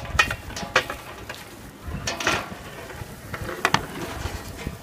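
A stirring paddle knocking and scraping against a large metal cooking pot, giving a few separate clanks.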